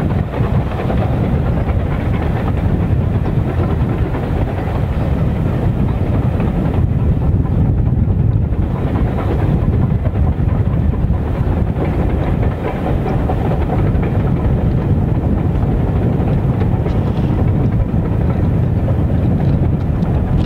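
GWR 4200-class 2-8-0 tank steam locomotive No. 4277 working its train away along the riverside, heard as a steady low rumble.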